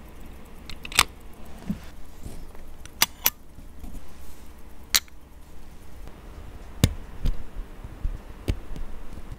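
Scattered sharp metallic clicks and light taps, about seven in all, from a stainless-steel Longines automatic watch and its bracelet being handled, with a spring bar tool fitting the bracelet's spring bar toward the end.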